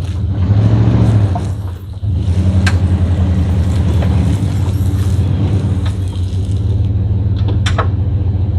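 An engine running steadily at a deep hum, with a brief rise in revs about a second in. Two sharp metallic clanks come through, one near 3 seconds and one near the end.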